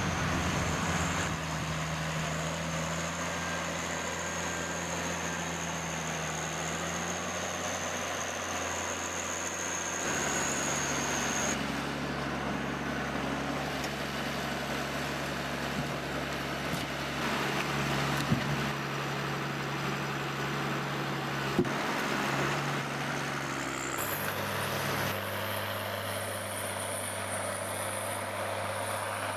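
Heavy machinery engines running steadily. The engine note shifts abruptly twice, and two short sharp knocks come in the second half.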